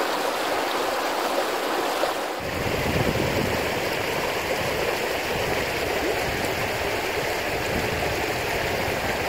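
River water running over stones in shallow rapids, a steady rushing noise. A bit over two seconds in the sound shifts abruptly and a low rumble joins it.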